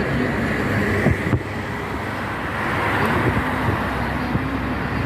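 Steady road traffic noise of vehicles running on rain-flooded streets, with a brief knock about a second in.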